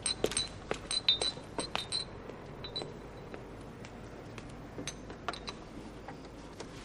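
Tableware clinking: a quick run of sharp, ringing clinks in the first two seconds, then scattered fainter clicks.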